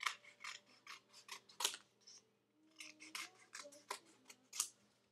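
Scissors cutting a sheet of temporary tattoos: a quick run of short, crisp snips in two bursts, with a short pause about two seconds in.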